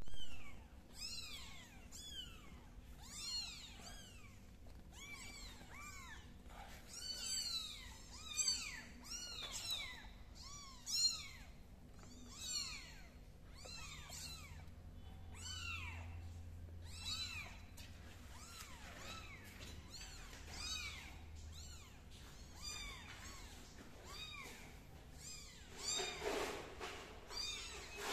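Several very young kittens mewing over and over: short, high-pitched calls that each rise and fall in pitch, several a second and often overlapping.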